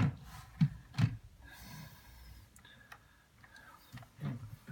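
A few sharp plastic clicks and taps from handling a laptop, with a short scraping rustle about two seconds in.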